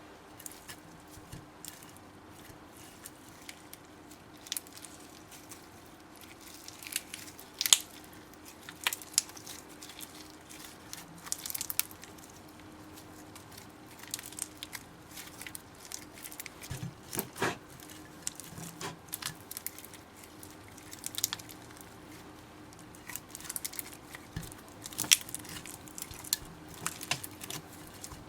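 Slime being squished and stretched by hand, giving irregular wet clicks and crackling pops, a few of them louder, over a faint steady hum.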